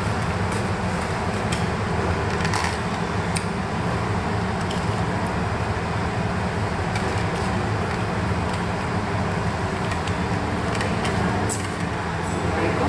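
Steady low mechanical hum and rumble of room machinery, with a few light clicks and taps of foam takeout boxes and a plastic sauce cup being handled.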